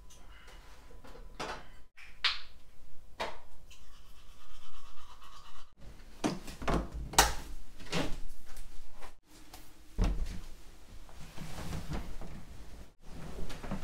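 A run of short household handling sounds split by hard cuts: a drinking glass lifted and handled, then clatter and scrubbing at a bathroom washbasin, then rustling of bedding as a duvet cover is fitted.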